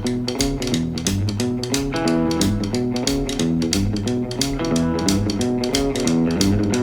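Background music: a guitar tune over a bass line, with a steady beat.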